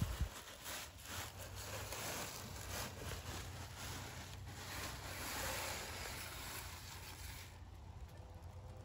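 Plastic wrapping and cardboard rustling and crinkling as flat-pack wooden hutch panels are pulled out of their box, over a low wind rumble on the microphone.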